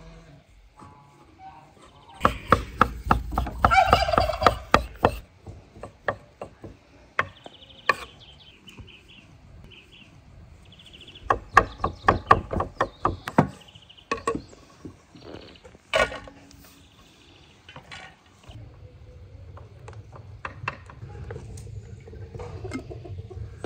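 A kitchen knife chopping cooked meat on a wooden cutting board, in two quick runs of rapid chops separated by scattered single knocks. A turkey gobbles about four seconds in, during the first run of chopping.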